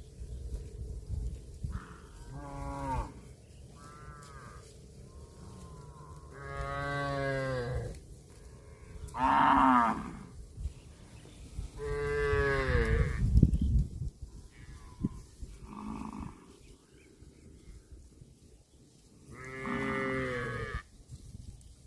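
Cattle mooing: a series of about seven separate moos, some short and some over a second long, the loudest about nine to ten seconds in.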